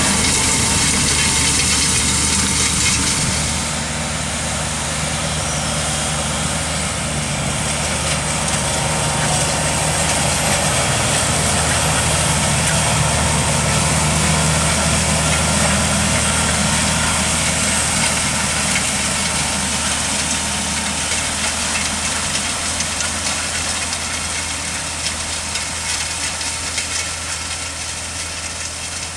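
Fendt 930 tractor's diesel engine running steadily as it pulls a Kverneland u-drill 6000 seed drill through tilled soil, with the drill working the ground. The sound grows gradually fainter over the last third as the rig moves away.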